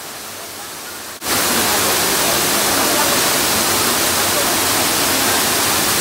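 Steady rushing of a waterfall pouring into a plunge pool. A little over a second in, it jumps abruptly to a much louder level and holds there.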